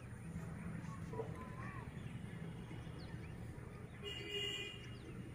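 Faint outdoor ambience: a low steady rumble with a few brief high calls, the clearest about four seconds in.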